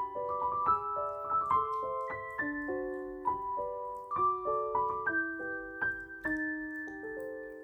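Solo piano music: gently rolling broken chords, one note after another, ending on a held chord that slowly fades.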